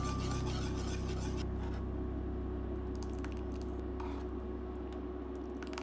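Wire whisk clicking and scraping against a steel pan as it beats thick haleem, in quick irregular taps, with a low steady hum underneath that fades near the end.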